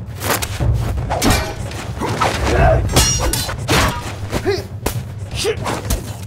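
Sword-and-shield fight sounds: a quick run of hits and thuds, several a second, mixed with short grunts from the fighters.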